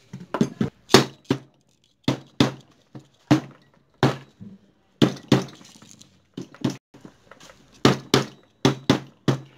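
A mallet tapping on the crankcase of an Asya 200 cc motorcycle engine: about twenty sharp knocks, mostly in quick pairs and short runs with brief pauses between. The crankcase half is being driven home over the crankshaft and gearbox shafts after it refused to go on.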